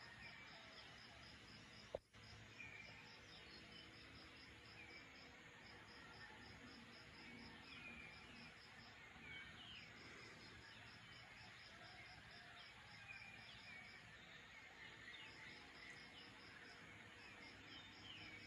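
Faint pre-dawn outdoor ambience: an insect chirps in a steady train of rapid high pulses that pauses twice, with scattered short bird chirps. A single sharp click sounds about two seconds in.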